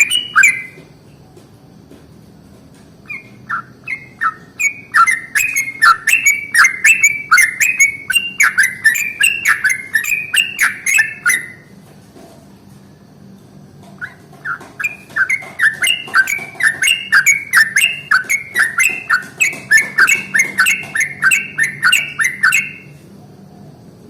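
Yellow-vented bulbul (trucukan) singing its long rolling song: two long runs of rapid, repeated bubbly notes, each lasting about eight seconds, with a short pause between them.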